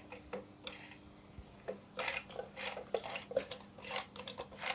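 Sewing machine mechanism turned stiffly by hand, its metal parts clicking and clattering irregularly, denser from about a second and a half in; the owner thinks something inside is damaged after being overvolted.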